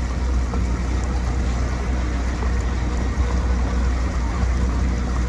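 Supercharged Kawasaki Ultra 310X jet ski engine running at no-wake speed, about 4 mph: a steady low drone with water noise.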